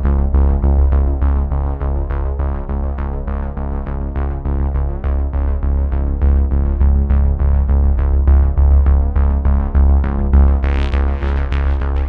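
Background electronic music: synthesizer with a strong bass and a steady beat of about four notes a second, with a swelling whoosh near the end.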